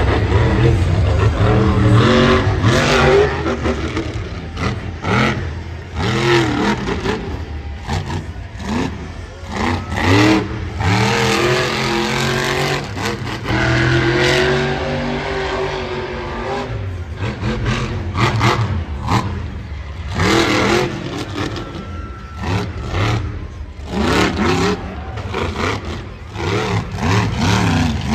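Monster truck engines, supercharged V8s, revving hard over and over. Their pitch repeatedly climbs and falls as the trucks accelerate and ease off over the dirt jumps.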